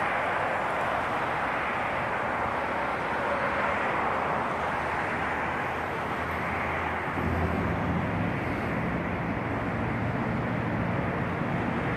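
Steady outdoor city background noise: a constant rushing hiss of distant traffic, with a low hum that grows stronger about seven seconds in.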